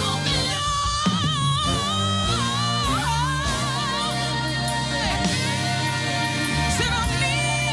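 A live soul song: a woman sings long, wavering held notes over a full band.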